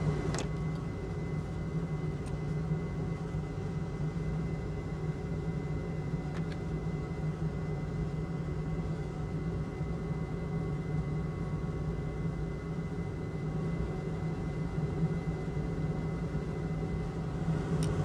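Steady low machine hum of running workbench equipment, with a thin steady high tone above it and a faint click or two.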